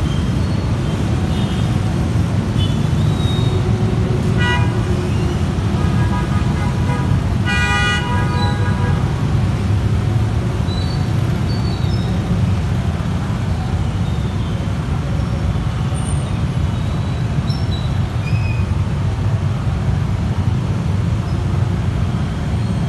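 Dense stop-and-go traffic of motorcycles and cars, a steady engine rumble. A short horn toot comes about four and a half seconds in, and a longer horn blast just before eight seconds in.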